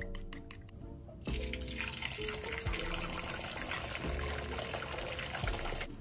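Chopsticks whisking eggs against a ceramic bowl, a rapid clicking about six times a second. About a second in, this gives way to a steady sizzle of beaten eggs frying in a pan. Background music plays throughout.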